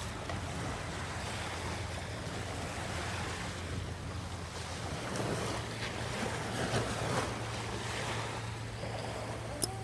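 Small waves breaking and washing up a pebble beach, with wind rumbling on the microphone. A short sharp click near the end.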